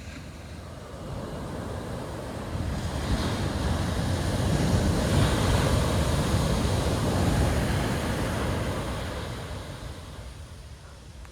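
Surf on a steep shore-break beach: one wave builds, crashes loudest in the middle, and washes back and fades near the end.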